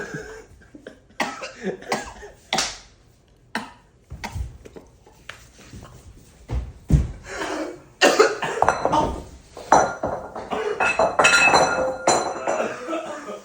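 People coughing repeatedly after breathing in flour dust, with a few knocks and clinks of kitchenware. The coughing is heaviest in the second half.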